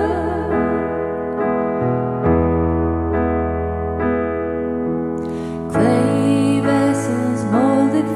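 Soft piano accompaniment of a worship song plays held chords through an instrumental break between verses. Two women's voices end the previous line at the start and come back in for the next verse about six seconds in.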